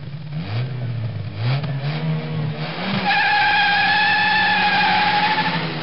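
Car engine revved several times in quick rising bursts, then a loud, steady, high tyre squeal from about three seconds in, over the running engine, as in a burnout; cut off at the end.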